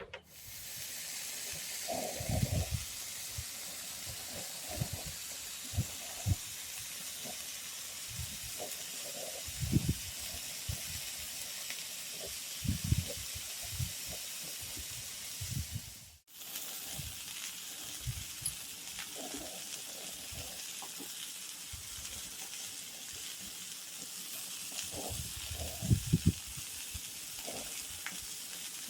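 Steady hissing with scattered soft low knocks and thuds, broken by a brief cut to silence about sixteen seconds in.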